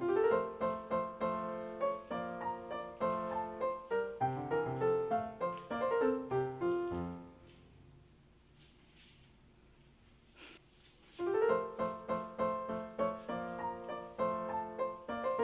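Background solo piano music, a flowing run of notes that stops for about four seconds midway, leaving only a faint click in the pause, and then starts again.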